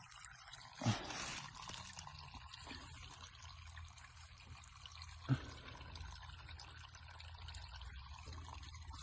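Faint, steady trickle of water, broken by two light knocks about one second and five seconds in.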